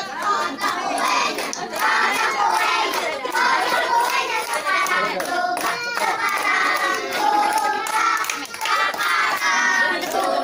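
A group of children singing together, with hand clapping.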